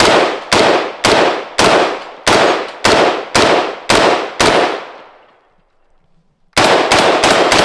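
Heckler & Koch G36 semi-automatic 5.56 mm rifle firing single shots, each with a decaying echo: nine shots at about two per second, a pause of a couple of seconds, then a faster string of about five shots near the end.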